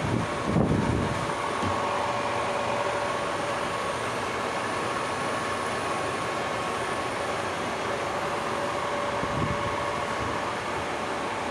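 Lathe running steadily, a machine hum with a steady whine, plus a brief low rumble about half a second in and again near the end.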